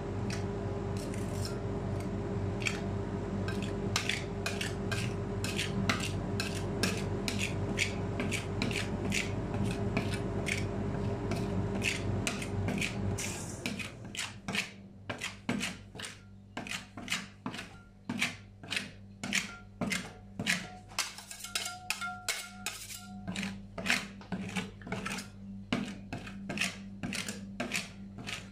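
Metal spatula tapping and scraping chocolate ice cream on a stainless steel cold plate, several sharp taps a second. A steady machine hum runs under the tapping and stops about halfway through.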